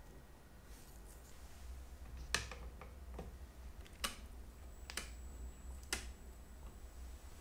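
Four sharp, small clicks about a second apart, like hand tools set down on or tapping against a workbench, over a low steady hum.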